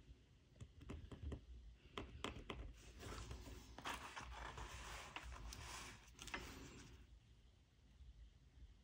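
Faint scratching and light ticks of fingernails and a pen working over Aida cross-stitch fabric while it is being gridded, fading out around seven seconds in.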